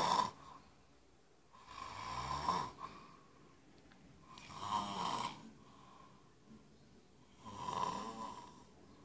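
A man snoring in his sleep: three rasping snores about three seconds apart, with quiet breathing between them.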